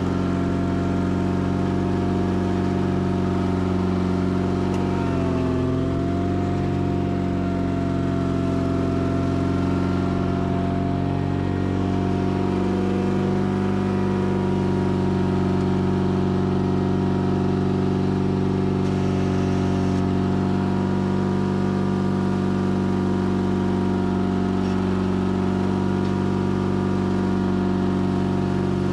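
Sears Craftsman FF24 tractor engine running steadily while plowing dirt with a 54-inch plow. Its pitch dips briefly about five seconds in.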